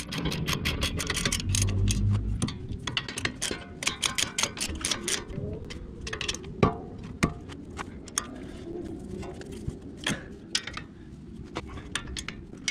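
Hand ratchet clicking in quick succession as it turns a bolt, then slower scattered clicks with a few sharper metal knocks as brake caliper parts are handled.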